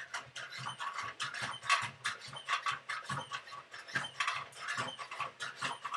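NAO humanoid robot walking: the grinding whir of its leg joint motors and the shuffle of its steps come in quick, scratchy pulses, then stop near the end.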